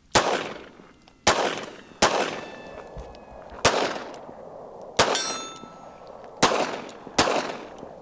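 Walther PPK/S .380 ACP pistol fired seven times at uneven intervals of roughly a second, each shot a sharp crack with a short echo. A thin metallic ringing hangs after some of the shots.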